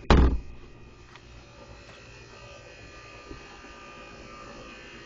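A loud double bump right at the start, then a steady electric buzzing hum with a faint click about three seconds in.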